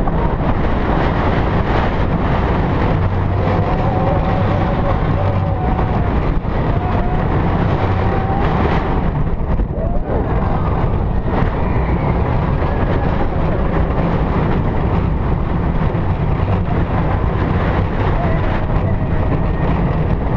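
Steel roller coaster train running at speed through turns and hills: a loud, unbroken rumble of its wheels on the steel track under a rush of wind on the microphone, with a wavering high whine rising and falling now and then.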